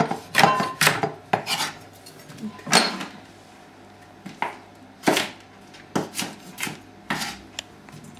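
Kitchen knife chopping a bell pepper on a wooden cutting board: irregular sharp knocks of the blade striking the board, about a dozen, spaced a fraction of a second to a second and a half apart.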